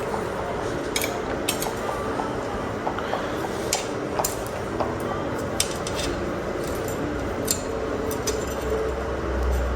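Light metallic clinks and taps of tools and bicycle parts being handled, scattered irregularly over a steady background noise.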